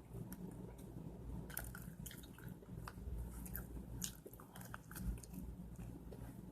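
A person chewing and biting food close to the microphone: scattered small wet clicks and smacks, over a steady low hum.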